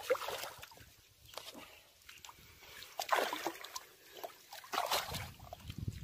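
A hooked rohu thrashing in shallow water at the bank, making several splashes, the loudest about three seconds and five seconds in.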